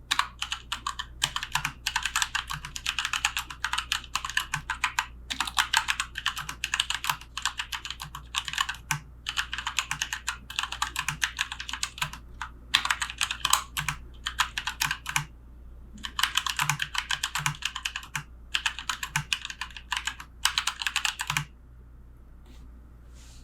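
Typing on a Keychron K2 wireless mechanical keyboard with tactile Gateron Brown switches: quick runs of keystrokes broken by short pauses, stopping shortly before the end.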